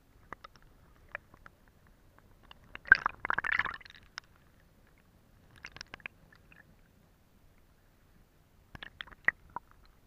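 Stream water gurgling and lapping against a half-submerged camera: scattered bubbling clicks and pops with near-quiet between, a louder burst of gurgling about three seconds in, and a few sharp pops near the end.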